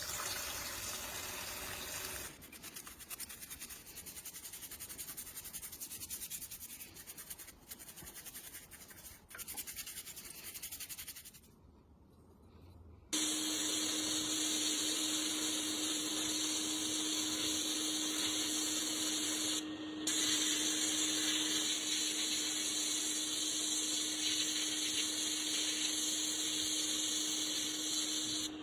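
Fast, even scrubbing or brushing on rusty metal parts. About halfway through, a powered tool starts and runs steadily with a strong hiss and one held hum, breaking off for a moment about 20 seconds in.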